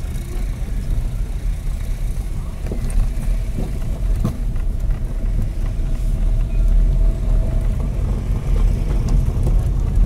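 Car driving on a gravel road, heard from inside the cabin: a steady low rumble of engine and tyres, with occasional sharp clicks of loose stones under the wheels.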